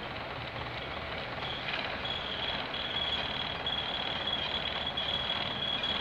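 British Rail Class 121 diesel railcar running along the line, heard from inside the passenger saloon: a steady mix of engine and wheel-on-rail noise. A thin, high whine joins in about a second and a half in and holds on.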